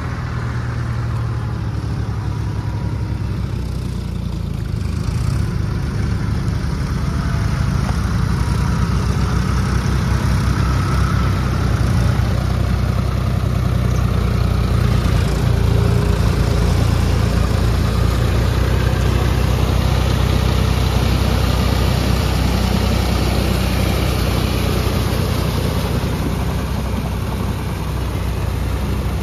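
A John Deere tractor's diesel engine running steadily under load as it pulls a rotary tiller through flooded paddy mud, growing louder over the first half as the tractor draws closer.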